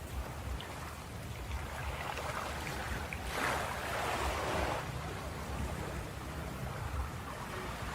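Ocean surf washing onto a beach, with a steady low rumble under it; about three seconds in, one wave breaks and washes in louder for a second or two, then eases off.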